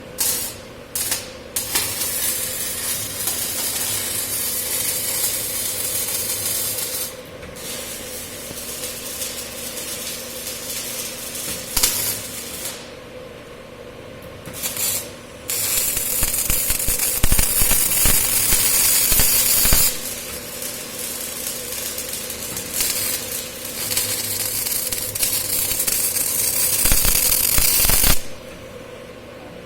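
CO2-shielded MIG welding arc sizzling on pipe, in several runs of a few seconds each with short pauses between, the longest lasting about twelve seconds in the second half. A steady hum runs under it throughout.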